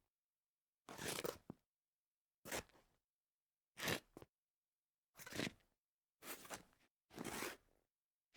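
Scuffs on a tile floor: six separate short scrapes, each about half a second long, with silence between them.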